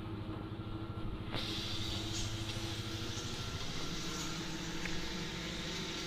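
JCB tandem road roller's diesel engine running steadily as it works a crushed-stone road base, a low mechanical hum with a few steady tones. Its low hum shifts to a higher pitch a little before four seconds in.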